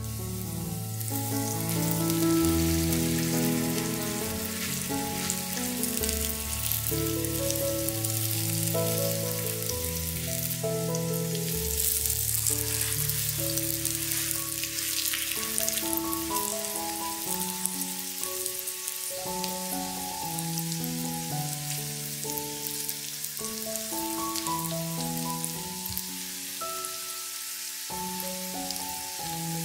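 Food sizzling and crackling as it fries in a pan, under background music with a gentle melody.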